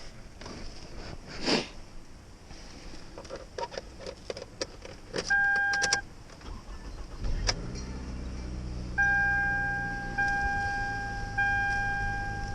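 Keys jangling, a short electronic beep, then a car engine starting and settling into a steady idle. Long electronic warning beeps repeat over the idle.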